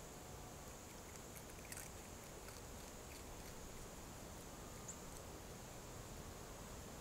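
A gray fox crunching corn kernels: a few faint crisp clicks about one and a half to three seconds in and once near five seconds, over a faint steady hiss.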